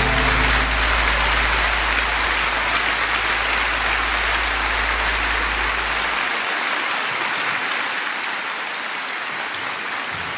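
Audience applauding: a steady clatter of clapping that slowly dies down, with a low rumble underneath that stops about six seconds in.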